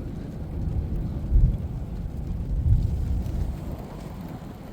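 Thunder rumbling, swelling twice and then fading away.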